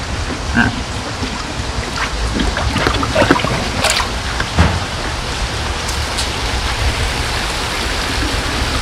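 Koi pond waterfall splashing steadily, with a few light knocks about four seconds in.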